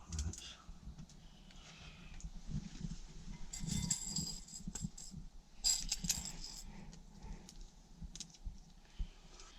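Small hardware pieces clinking and rattling as they are handled and fitted together, in two brief bursts about four and six seconds in, over faint handling noise.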